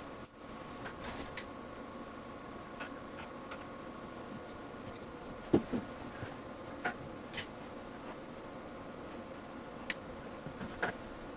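Steady hum and a faint whine from the electronics test bench, with brief handling rustle as a hand sets the multimeter in its clamp at the start, then a few sharp clicks, the loudest about five and a half seconds in.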